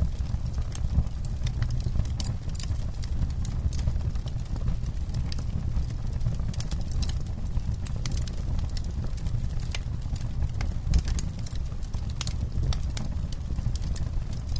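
Campfire burning, the wood crackling with frequent, irregular sharp pops over a steady low rumble.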